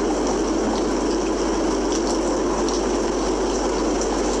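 Heavy rain falling steadily, an even hiss with faint ticks of drops.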